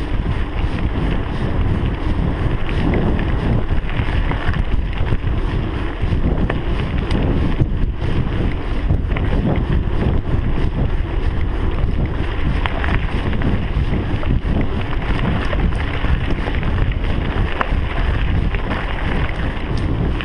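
Wind buffeting a GoPro's microphone as a mountain bike rolls along a gravel track, tyres rumbling steadily over the stones.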